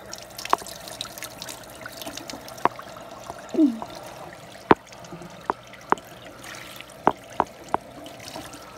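Water running from a sink faucet onto hair as it is rinsed under the tap, a steady splashing trickle. Sharp knocks and taps come every second or so, and a short falling tone sounds about three and a half seconds in.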